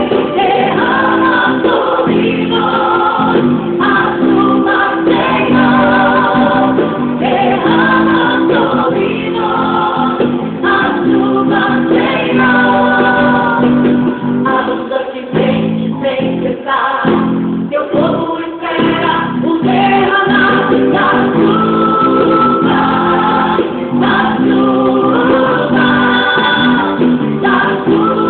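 Gospel song: a group of voices singing together over instrumental accompaniment, with a few short breaks in the middle.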